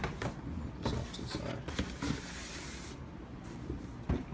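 Handling noise: scattered light knocks and clicks, with a brief papery rubbing hiss about two seconds in, as shoes and phone are moved around on a counter.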